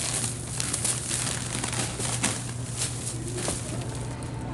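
Thin plastic shopping bag crinkling and rustling as it is handled, a quick run of crackles over a steady low hum.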